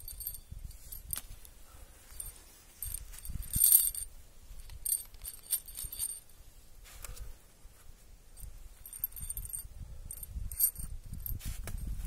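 Metal link chain clinking and jingling as it is lifted and gathered into a bundle in the hand, in several bursts of rattling, the loudest about three and a half seconds in.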